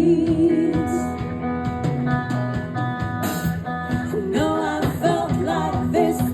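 Live band playing a song: a singer over guitar and held chords, the voice pausing for a few seconds in the middle before coming back in.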